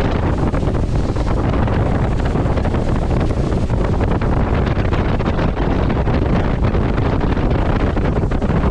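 Wind buffeting the microphone of a fishing boat running at speed across a lake: a loud, steady rumble, with water rushing and spraying off the hull.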